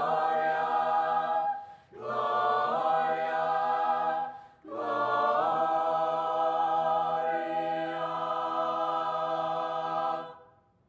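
High school chamber choir singing the closing phrases of a Christmas song in sustained chords. It breaks off twice briefly, then holds a long final chord that fades out near the end.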